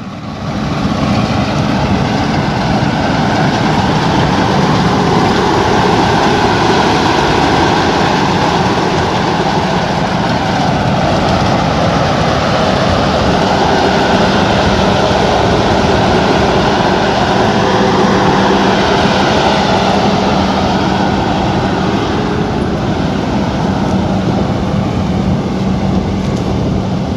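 An engine running steadily and loudly: a constant low hum under a wide rushing noise, with no change in speed.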